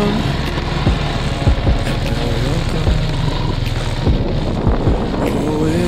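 Motorcycle riding along a street: the engine runs under steady wind buffeting on the microphone, with repeated low thumps. Background music plays faintly underneath.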